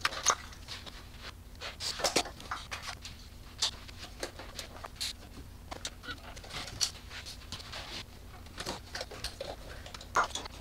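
Scattered clicks, knocks and rustles of hands working on top of a BMW N54 inline-six with the engine off, taking off the plastic-clipped ignition coils to get at the spark plugs.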